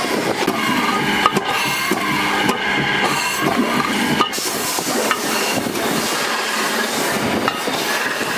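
Workshop metalworking noise: steady scraping and rubbing with a few sharp clicks and knocks, over the continuous hum of machinery.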